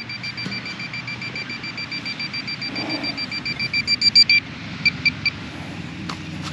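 Metal detector beeping on a target: a rapid run of short, high beeps at one steady pitch that gets louder about four seconds in and then stops, followed by three more single beeps.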